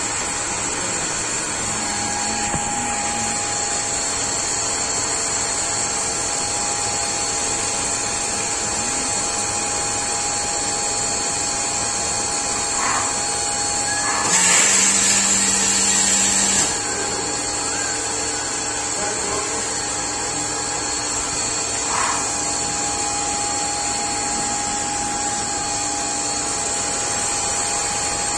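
CNC lathe with automatic loading running through its program: a steady machine hum with a constant whine. About halfway through, a louder hiss lasts about two seconds, with a short click a little before it and another a few seconds after.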